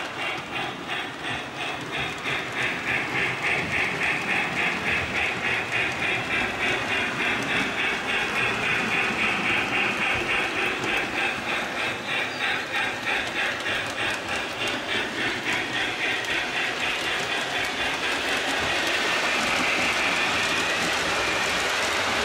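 Lionel Hogwarts Express model steam locomotive running on its track, with a steady rhythmic chuff and clatter about twice a second. Near the end the rhythm fades into a steadier rolling noise as the passenger cars go by.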